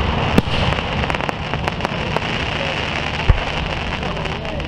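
Aerial fireworks shells bursting, with a dense crackling from crackle stars and two louder bangs, the heavier and deeper one about three seconds in.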